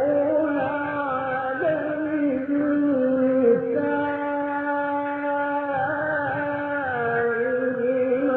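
A man's voice reciting the Quran in the melodic mujawwad style, drawing out long held notes that turn slowly up and down in pitch without a pause.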